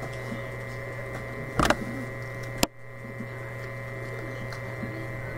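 Steady electrical hum, with a short knock about one and a half seconds in and a sharp click about a second later.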